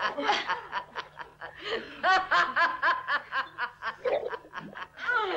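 Women laughing in quick, repeated bursts of ha-ha's.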